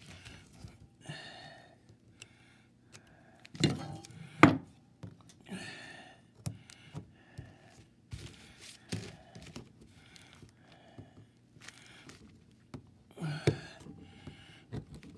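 Scattered short scrapes and rustles of a flat hand tool working the folded-over copper fire ring of a Caterpillar Sixty head gasket, straightening it out. Two sharp taps come about four seconds in and another near the end.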